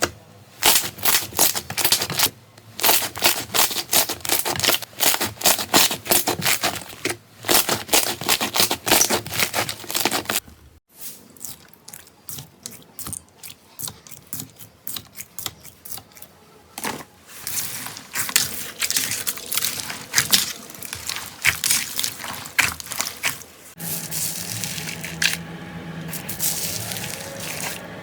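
Slime being squeezed and pressed by hand, with dense crackling and popping clicks. There are several short takes, one after another, and a sparser, quieter stretch partway through.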